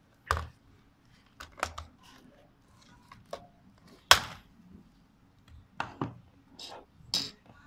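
Plastic shell and head strap of a DPVR VR headset knocking and clicking as it is handled and taken apart: a string of sharp, uneven clicks and taps, the loudest about four seconds in.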